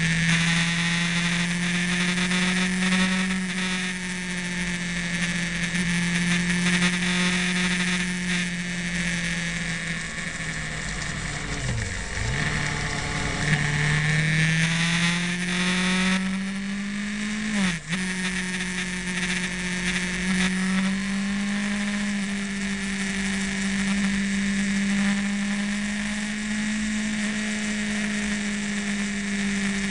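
Motorcycle engine heard from on the bike while riding, its pitch rising and falling with the throttle. It drops away and climbs back around twelve seconds in, with a quick dip near eighteen seconds. A steady rush of wind noise runs over it.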